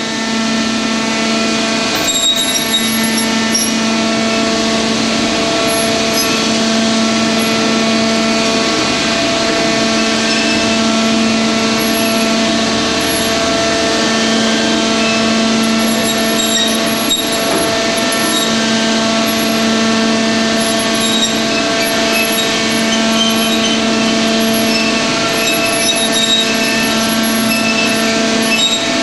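Roundo R-21-S section bending machine running steadily as its rolls bend a square steel bar into a ring: a constant mechanical hum with a fixed whine over it.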